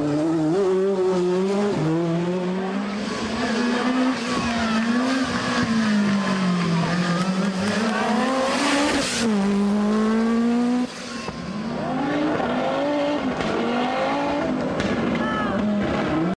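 Group B rally car engine revving hard, its pitch climbing and dropping again and again through gear changes. About eleven seconds in the note cuts off sharply, then comes back in several shorter revs.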